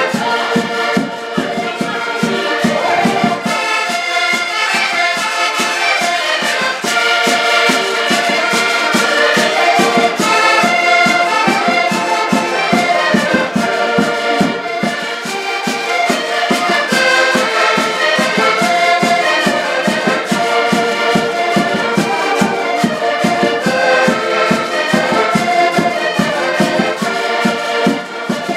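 Several accordions playing a traditional Portuguese dance tune together, with a steady beat.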